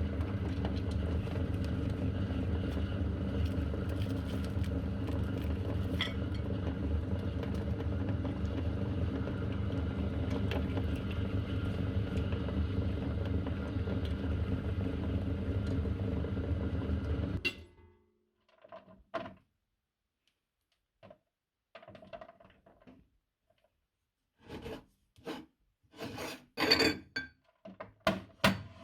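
Electric meat grinder running steadily as it grinds chocolate bars, then cutting off suddenly about two-thirds of the way through. After that, a few scattered clicks and knocks, louder near the end.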